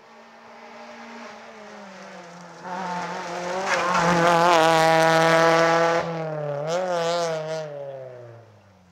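Rally car's engine at full throttle as it climbs past, growing louder as it approaches and loudest as it goes by. The engine note drops sharply about six seconds in, wavers, then falls away as the car drives off up the road.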